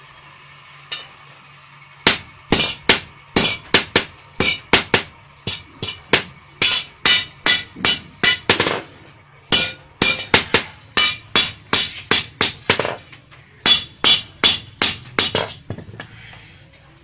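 A fast run of sharp, ringing hammer blows seating a khukuri's handle onto its hot tang as the handle is burned in. The blows come at about two to three a second, starting about two seconds in, with two short pauses, and stop near the end.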